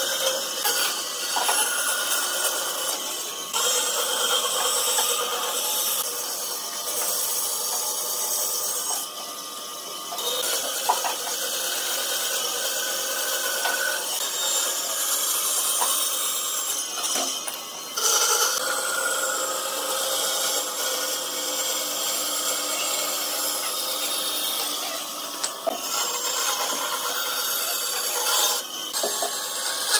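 Band saw cutting through a thick wooden board along a curved line: a steady sawing noise with a few brief dips in level.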